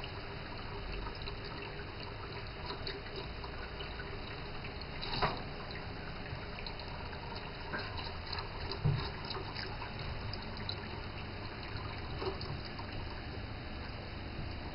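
Kitchen faucet running a steady stream into a sink, with small splashes and drips as a cat paws at the falling water. A sharp tap stands out about five seconds in and a dull knock about nine seconds in.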